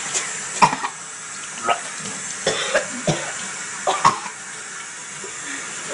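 A person coughing again and again in short fits, set off by a mouthful of dry cinnamon powder. The coughs ease off in the last two seconds.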